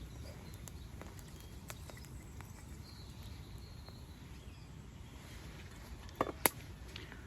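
Small wood campfire with more wood being put on it: faint crackles and taps over a low steady rumble, then two sharp knocks of wood about six seconds in.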